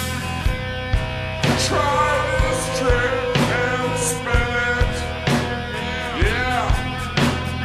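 Rock music with a steady drum beat, about two beats a second, under sustained and sliding pitched tones.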